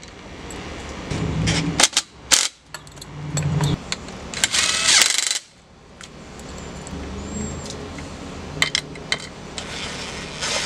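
Wrench and steel bolts clinking and scraping on metal as a gearbox is bolted down: a few sharp clinks about two seconds in, a longer rattling scrape near the middle, and more clinks near the end.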